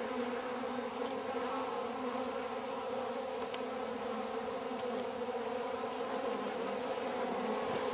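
Many honeybees buzzing, a steady unbroken hum of wings.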